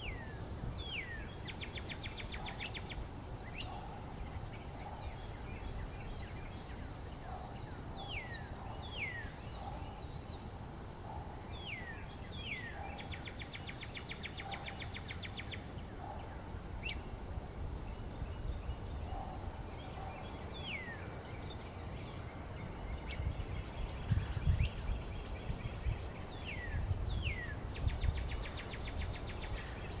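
Northern cardinal singing: pairs of steep, downslurred whistles followed by a rapid chattering trill, the phrase repeated every few seconds. A low rumble comes in during the last several seconds.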